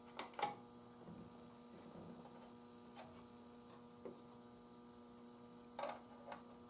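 Faint steady mains hum with a few light clicks and taps, two just after the start, one in the middle and two near the end, from meter probes touched to the radio's wiring.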